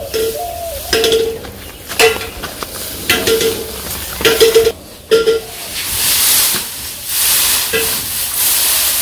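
Armful of dry straw rustling and crackling as it is carried and then dropped and spread in a cattle feed trough, louder in the second half. A few short humming tones sound in the first half.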